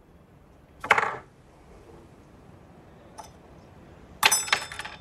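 A glass set down hard on a table: one sharp knock about a second in, a faint click near three seconds, then a louder clink near the end that rings briefly.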